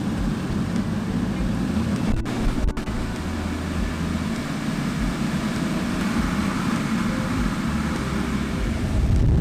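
Kyowa sirocco (centrifugal) blower running steadily: a continuous rush of air with a low rumble.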